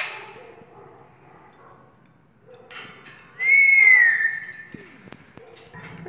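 Alexandrine parakeet giving a loud whistle about three and a half seconds in, held for about a second and sliding slightly down in pitch, after a short falling squawk at the very start.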